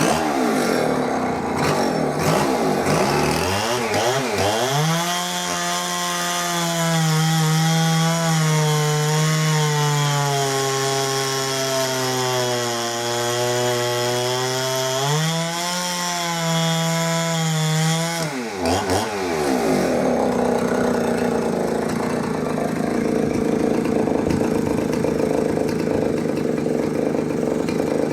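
Oleo Mac 284 two-stroke chainsaw running at full throttle, cutting cookie slices through a tree stump: the engine pitch sags as it works deep in the cut and climbs back again. About two-thirds through, the steady engine note gives way to a rougher, noisier sound of similar loudness.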